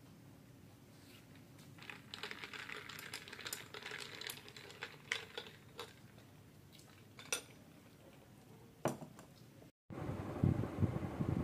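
A metal fork scraping and clinking on a ceramic plate of rice for a few seconds, followed by a couple of sharp clicks. Near the end a low rumbling noise takes over.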